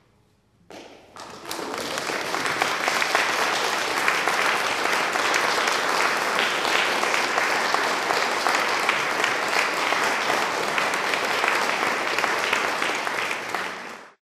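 Audience applauding at the end of a performance. It starts about a second in, quickly fills in to steady, dense clapping, and cuts off suddenly near the end.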